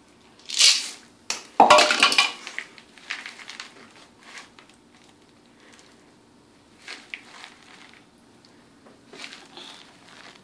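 Chocolate chips tipped into a mixing bowl of cookie dough: a short rush, then a loud clatter about one and a half seconds in, followed by scattered quieter scrapes and knocks in the bowl.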